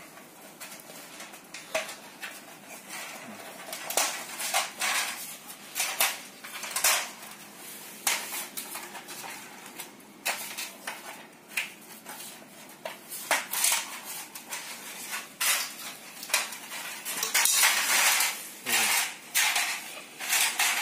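Hands handling LED backlight strips on a TV's sheet-metal back panel: irregular clicks, taps and light clatter of plastic and metal, growing busier with a couple of seconds of rubbing and rattling near the end.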